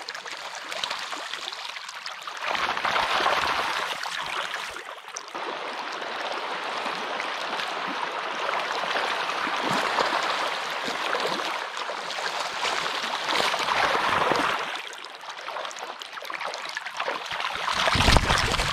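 Shallow river riffle rippling and gurgling over stones, with salmon splashing through it. One loud splash comes right at the camera near the end.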